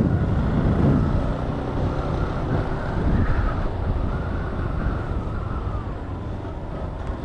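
Yamaha Fazer 250 motorcycle under way, its single-cylinder engine running through the stock exhaust, with the engine loudest in the first second or so and then steady as the bike cruises.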